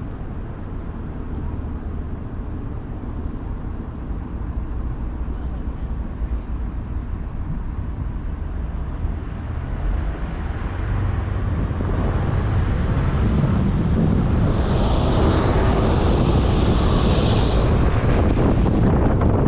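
Low rumble of vehicle noise that grows louder about two-thirds of the way in, with a hiss swelling and fading near the end.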